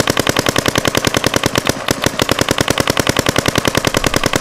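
Paintball marker firing continuously in rapid fire, about ten evenly spaced shots a second.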